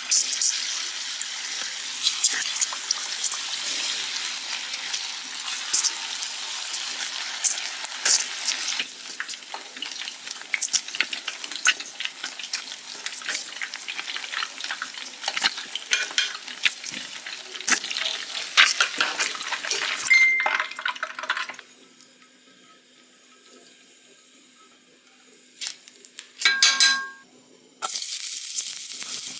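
Chicken 65 pieces frying in hot oil, a loud hissing sizzle with many sharp crackles. It cuts off about 21 seconds in, a short clinking sounds a few seconds later, and the frying starts again near the end.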